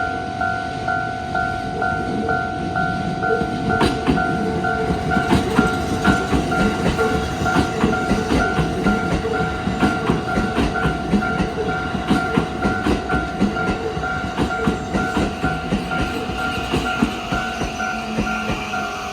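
Japanese railway level crossing warning bell ringing in a fast, steady repeating ding. From about four seconds in, an electric commuter train runs over the crossing, its wheels clattering over the rail joints.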